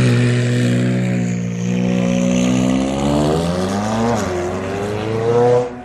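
Supercar engine holding high revs, then accelerating away with its pitch climbing. The pitch drops briefly about four seconds in, climbs again, and cuts off suddenly just before the end.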